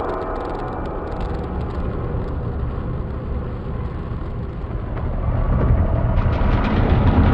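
Cinematic sound-design percussion from the Heavyocity Damage Uncharted 88 Kontakt instrument, played from a keyboard: a dense low rumble that grows louder about five seconds in, with rattling ticks toward the end.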